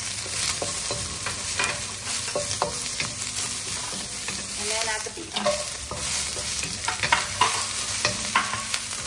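Stir-frying in a very hot wok: aromatics sizzling steadily in oil while a spatula scrapes and clacks against the wok, with frequent short knocks.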